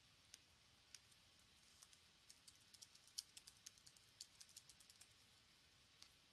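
Faint typing on a computer keyboard: a few separate key clicks, then a quick run of keystrokes from about two seconds in that stops shortly before the end.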